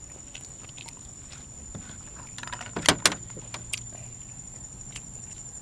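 Crickets trilling steadily, with scattered small clicks and two loud, sharp clicks close together about three seconds in.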